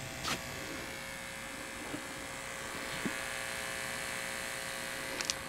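Speaker driver wired directly to a 120-volt wall socket, buzzing steadily on mains current as it overheats and smokes. A couple of faint clicks sound over the buzz.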